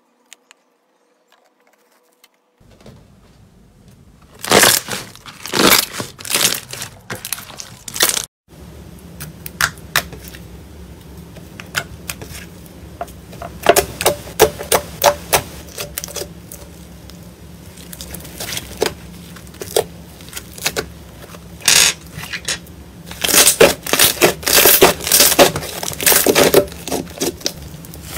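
Slime being squeezed and pressed, with clustered crackling and popping clicks. It starts after a quiet first couple of seconds and breaks off briefly about eight seconds in.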